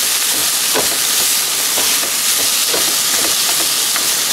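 Ground beef and chopped onion sizzling steadily in a frying pan on a camp stove, with a spatula stirring and scraping against the pan several times.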